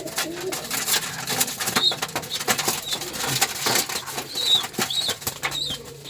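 Domestic pigeons scuffling on the loft floor, a rapid irregular run of wing flaps and feather rustles, with a few short high chirps from about two seconds in.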